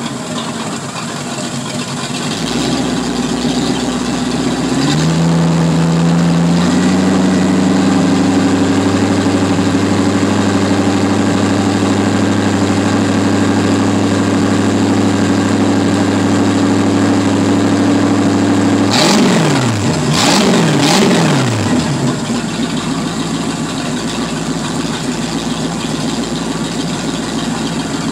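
Boat's inboard/outboard sterndrive engine running on a garden-hose water supply, exhausting through the drive. It idles, steps up to a faster steady speed about five seconds in, gets a few quick revs a little past halfway, then settles back to idle.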